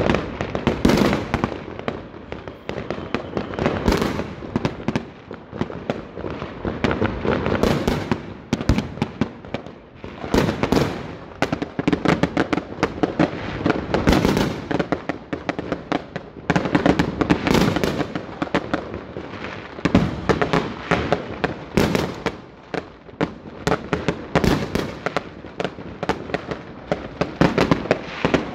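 Many aerial fireworks going off at once: an unbroken barrage of sharp bangs, close together and without a pause.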